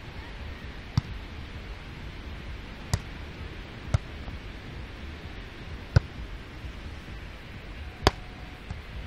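A beach volleyball being struck by players' hands and forearms during a rally: about five sharp slaps one to two seconds apart, the loudest near the end from a jumping spike at the net, over a steady background hiss.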